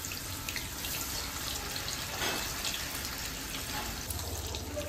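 Fish frying in hot oil in a pan: a steady sizzle with small crackles. A low hum comes in near the end.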